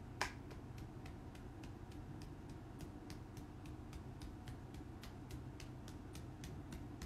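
Faint, quick light clicks or ticks, about three or four a second, over a steady low hum, with one louder click just after the start.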